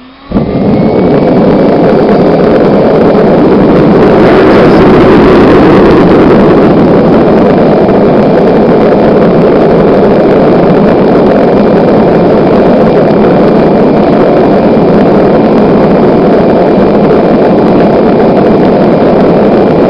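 Propane gas forge running with its air blower switched on: a loud, steady roar of forced-air burner flame that starts suddenly about half a second in, with a faint high whine above it.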